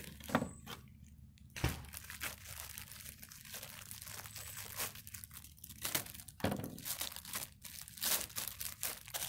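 White plastic mailer bag crinkling and crackling irregularly as it is cut open with scissors and pulled apart by hand.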